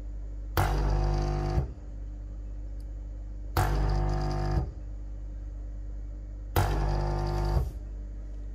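Nespresso Lattissima Touch's pump buzzing in one-second pulses about every three seconds, each starting and stopping sharply, over a steady low hum. The machine has just been switched on for the first time and is being flushed.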